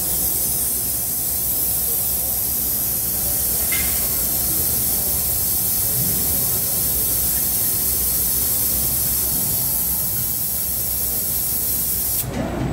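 Steady, high-pitched air hiss in a robotic press-brake cell, with a brief click and a short tone about four seconds in. The hiss cuts off suddenly near the end.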